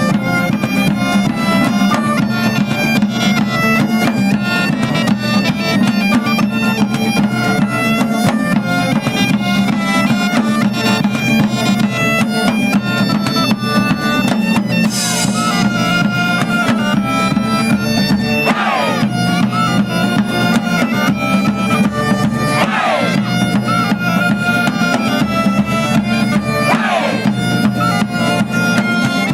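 Bagpipe music: a tune played over a steady drone, with a drum beat underneath.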